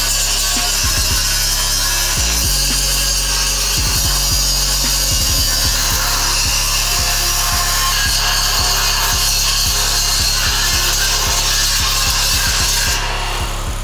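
Power saw cutting wood with a steady, loud hiss that eases off near the end, over background music.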